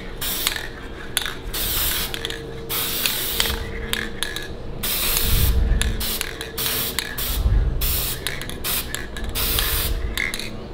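Aerosol spray-paint can hissing in short repeated bursts, the spray starting and stopping many times as paint is laid through a paper stencil.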